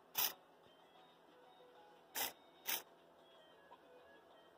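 Blue micro servo, driven by an Arduino, whirring through short moves back and forth on a Stirling engine's displacer linkage. One brief whir comes just after the start, then two more about two seconds later, half a second apart. This matches the program's alternating servo positions with 0.5 s and 2 s pauses.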